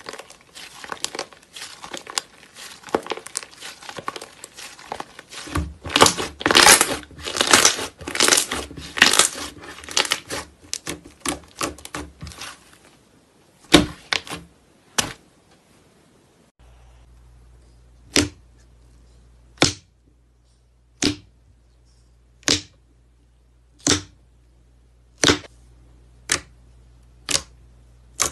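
Slime being stretched, folded and squeezed by hand, with dense crackling and popping as air pockets burst. Later come two sharp pops, then single clicks about every second and a half as fingers press into glossy slime.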